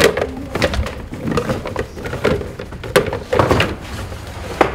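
Loose doll hands clattering and knocking against each other and the cardboard box as a hand rummages through them: irregular clicks and knocks, a few sharper ones, one near the end.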